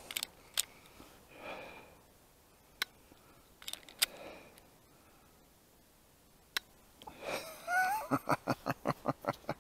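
A few sharp, quiet metallic clicks from a Glock 19 with an Advantage Arms .22 conversion kit being handled after it stops firing, between heavy, exasperated breaths and sighs. Near the end a quick run of breathy, muttered sounds.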